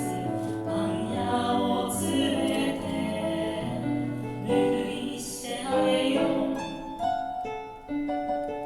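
One person's voice overdubbed into a several-part choir, singing over piano accompaniment. The voices drop out about seven seconds in, leaving the piano playing on alone.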